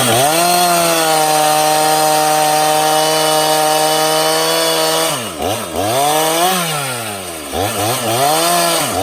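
Stihl MS391 two-stroke chainsaw cutting at high revs, held steady for about five seconds, then the throttle is let off and opened up again twice before it settles back at high revs.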